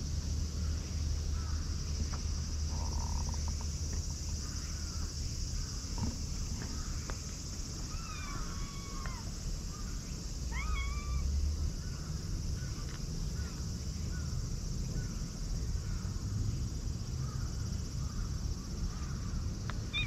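Cats meowing, a few drawn-out meows about eight and ten seconds in and fainter short ones after, over a steady high drone of insects.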